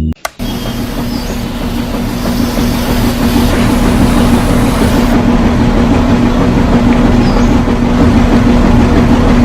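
A small motor running steadily: a loud, even mechanical hum with a constant pitch and a rattly noise over it. It starts abruptly just after the opening.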